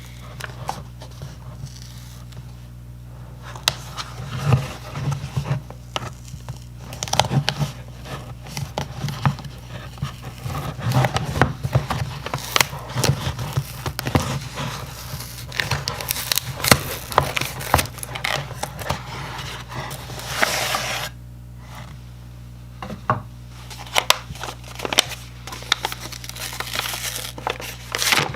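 Hands opening a mailed package: packaging crinkling and tearing, with irregular scrapes and clicks, over a steady low electrical hum.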